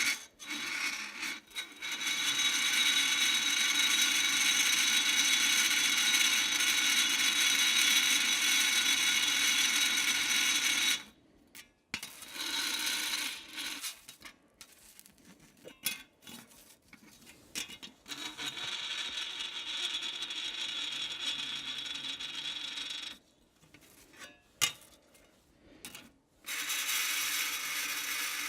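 A metal object held against dry ice, vibrating with a steady, high, ringing metallic tone of several pitches at once. The tone sounds for about ten seconds, breaks off into short chirps, then comes back quieter twice, as the metal is moved and lifted on the ice.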